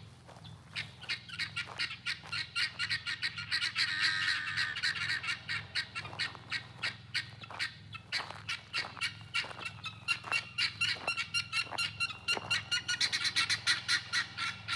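Domestic helmeted guineafowl calling in a harsh, rapid chatter of short repeated calls, about four or five a second, from several birds at once.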